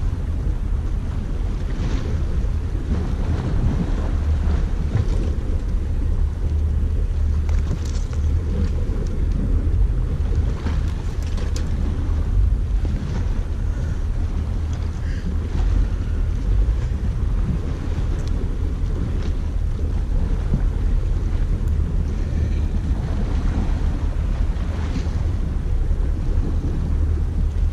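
Wind buffeting the camera microphone at the sea, a steady low rumble with a few faint scattered ticks.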